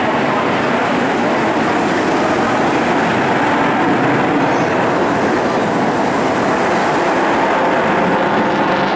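Eurofighter Typhoon's twin Eurojet EJ200 jet engines, a loud, steady roar.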